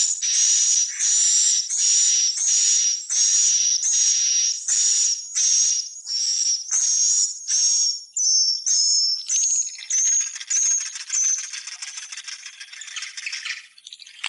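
Swiftlet calls: a regular series of short, high chirps about two a second, each with a whistled note, giving way about ten seconds in to a dense, continuous twittering chatter.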